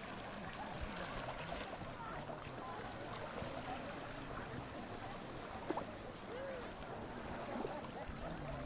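Busy beach ambience: indistinct chatter of many people at a distance over a steady wash of background noise, with one sharp tap between five and six seconds in.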